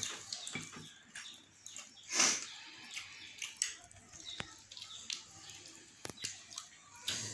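Eating by hand: wet chewing and lip-smacking close to the microphone, with a louder breathy noise about two seconds in and a few sharp clicks.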